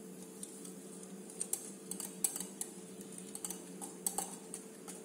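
A metal wire whisk beating a liquid egg mixture in a glass bowl, its wires clinking irregularly against the glass, starting about a second in.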